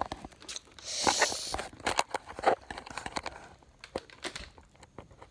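Handling noise: scattered clicks and knocks of plastic blasters and the phone being moved about, with a brief rustling rush about a second in.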